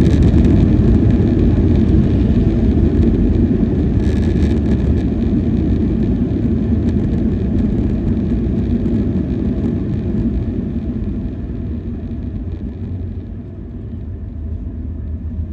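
Cabin rumble of a Boeing 737-800 slowing on the runway after touchdown: a loud, steady rush of engine and rolling noise that gradually dies down as the jet decelerates, thinning out over the last few seconds.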